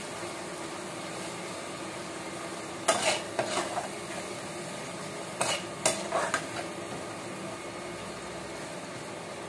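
Onion-tomato masala sizzling in a steel pot as a metal spatula stirs it, with the tomatoes and salt cooking down. The spatula scrapes and clinks against the pot in two short bursts, about three seconds in and again near six seconds.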